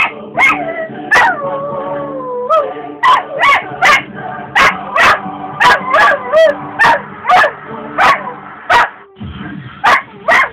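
Old cocker spaniel 'singing' at a television commercial: a quick run of sharp barks and yips, about two a second, with a long wavering howl about a second in and a short pause near the end.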